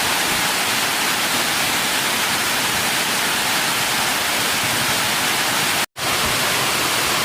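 Waterfall: a loud, steady rush of falling water. It cuts out for an instant about six seconds in.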